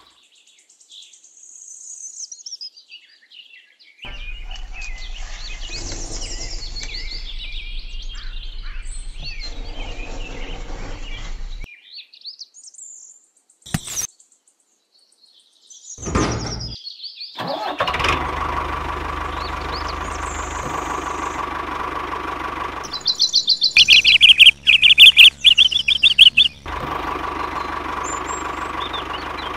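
Birds chirping for the first few seconds. From about 18 seconds in, an engine runs steadily, broken by a loud rapid rattling of about three seconds near the end.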